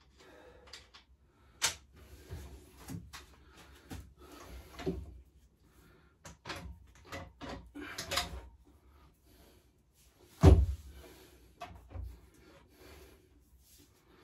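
Tools and metal parts of a pit bike's front end knocking, clicking and clattering as they are handled during dismantling, with a heavy thump about ten and a half seconds in.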